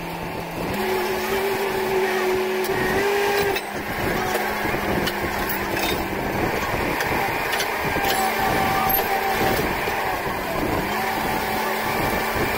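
Truck-mounted borewell drilling rig running, its engine holding a steady hum that steps up in speed about a second in and shifts again partway through. A few sharp clicks come over it.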